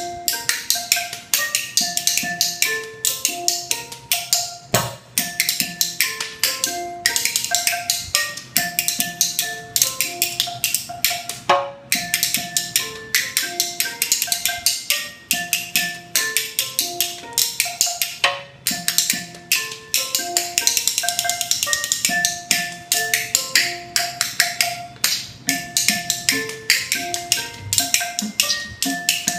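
Spoon and fork played as a rhythm instrument, clacked rapidly against the thigh and palm in a steady fast pattern, over a repeating loop of marimba-like notes from a Roland SPD-30 Octapad percussion pad.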